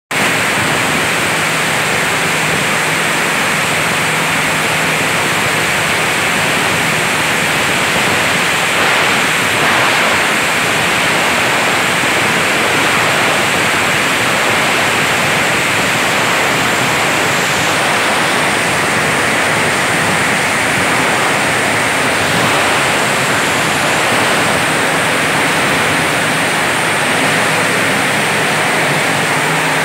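Plastic grinding machine (granulator) running, chopping plastic into granules: a loud, even rushing noise with a faint low hum under it.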